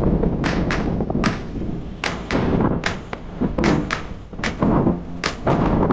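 Wind buffeting the microphone: a constant deep rumble broken by many irregular sharp knocks and thuds.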